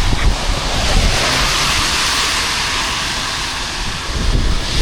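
Wind buffeting the microphone in low rumbles, over a rushing hiss that swells about a second in and fades toward the end.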